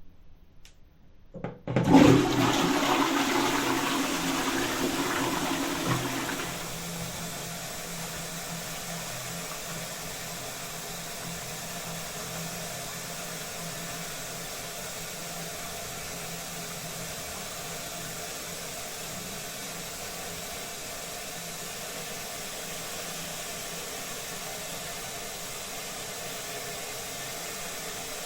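Toilet flushing: a few faint clicks, then a loud rush of water for about four seconds that gives way to the steady hiss of the tank refilling.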